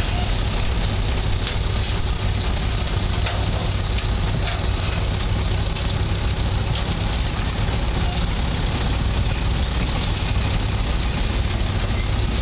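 International gasoline engine of an antique Ingram road roller built by Acme Iron Works, idling steadily with a low, even rumble.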